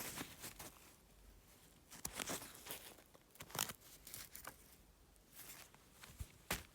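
Handling noise from the beanie being turned over and looked at: scattered soft rustles and crinkles, a few at a time with quiet gaps between them.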